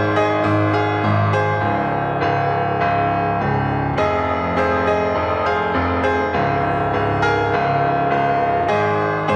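Background music: a gentle piano piece with a low sustained bass, notes struck in a steady rhythm.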